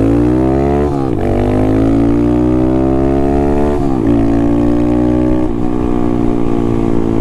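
Honda Monkey's single-cylinder engine through a Yoshimura RS-3 exhaust with no baffle, heard from the rider's seat while accelerating. The pitch climbs and drops sharply at two upshifts, about a second in and about four seconds in, then settles at a near-steady cruise.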